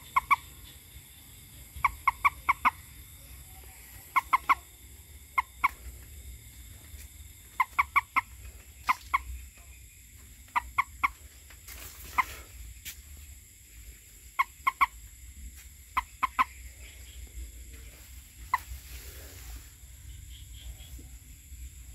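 A frog calling in short bursts of two to four quick clucking croaks, a burst every second or two, with a last single note near the end. A steady high-pitched hum runs underneath.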